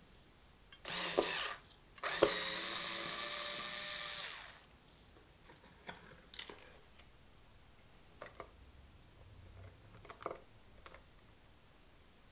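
Bosch IXO cordless screwdriver running in two goes, a short burst and then about two and a half seconds of steady motor whine, undoing screws on a guitar body. A few light clicks and taps of parts being handled follow.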